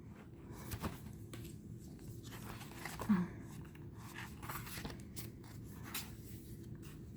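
Tarot cards being handled: light rustling and scattered small clicks of card stock as the deck is gone through one card at a time, with a short low hum about three seconds in.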